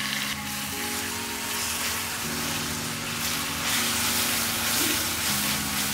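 Tomato-and-curd gravy sizzling in a frying pan as the curd is stirred in with a wooden spatula, a steady hiss. Soft background music of held notes that change every second or two plays under it.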